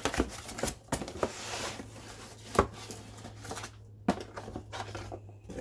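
Packaging being handled and rustled while a new angle grinder's box is unpacked: scattered light knocks and clicks, a short stretch of rustling early on, and one sharper knock about halfway.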